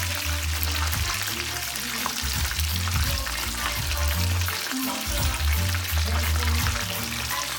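Egg rolls deep-frying in a pot of hot oil, making a steady, dense crackling sizzle. Music with a heavy bass line plays in the background.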